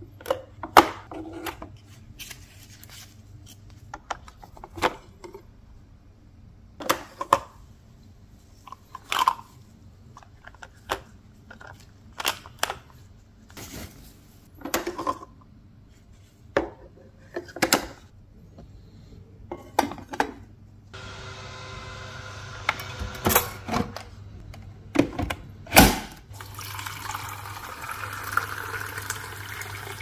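Plastic clicks and knocks from the lid and parts of a Makita DCM501Z cordless coffee maker as they are opened and handled. In the last third a kitchen tap runs, filling the clear plastic water tank with a steady rush.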